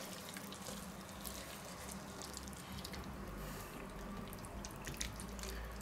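Faint wet sounds and soft taps of creamy noodles being lifted from a wok with a utensil and dropped onto a plate, over a steady low hum.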